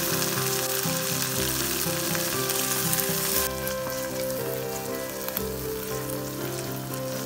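Chopped onion and tomato sizzling in hot coconut oil in a pan. The sizzle is loud at first and drops off about halfway through. Soft background music with held notes plays underneath.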